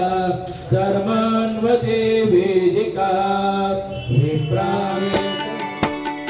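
Indian devotional music: long held melodic notes for the first few seconds, then a quick run of drum strokes comes in over the last two seconds.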